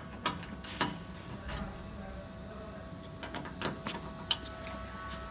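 Steady machine hum with a few thin steady tones, broken by several sharp clicks and knocks, the loudest a little after four seconds in.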